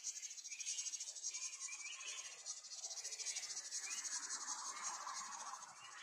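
Steady high-pitched insect chorus, a fast even pulsing trill, with a few short chirps over it.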